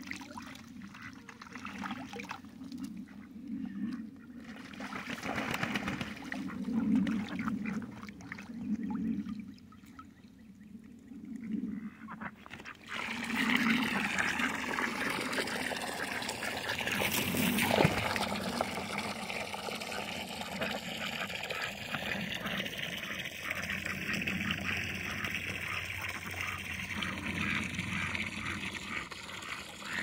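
Water running and trickling; it grows louder and fuller about halfway through.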